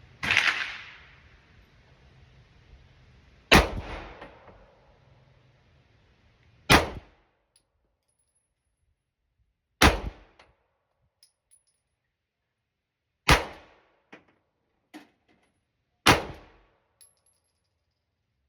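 Six single pistol shots fired at a slow, deliberate pace, about three seconds apart, each a sharp crack with a short ringing decay; a few faint clicks fall between the last shots.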